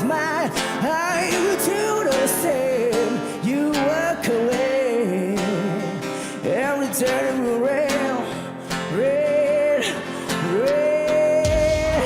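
A singer with live band backing, singing vocal runs and several long held high notes, the longest near the end. A deep bass note comes in just before the end.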